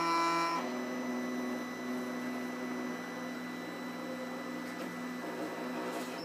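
Trinity Labs Aluminatus 3D printer printing its slow first layer, its stepper motors and lead screws moving the print head with a steady whine. A stack of higher tones in the first half-second gives way to steadier, lower tones as the head changes its moves.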